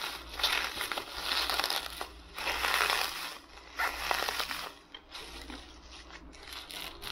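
Thick plastic bubble wrap crinkling and crackling as it is squeezed and turned over by hand, in several spells of handling. It goes quieter for the last couple of seconds, with small snips as scissors cut into the wrap.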